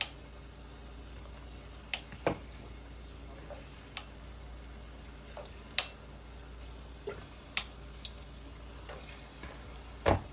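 Hot oil frying with a faint steady sizzle, broken by scattered sharp clicks and taps.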